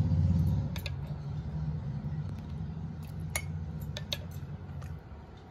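Several light clinks of a spoon against a glass as soaked basil seeds are spooned in, over a low steady rumble that drops away about five seconds in.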